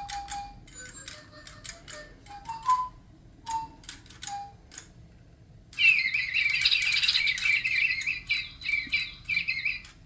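DigiBirds electronic toy birds tweeting: a few short whistled notes among sharp clicks, then from about six seconds in a louder, rapid run of high chirps.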